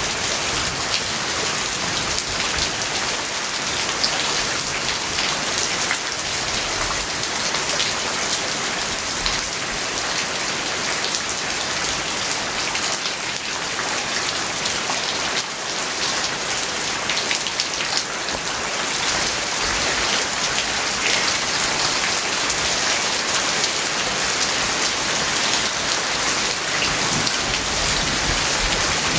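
Steady rain falling on a house yard: a dense, even hiss of rain with many small, close drop ticks, holding constant throughout.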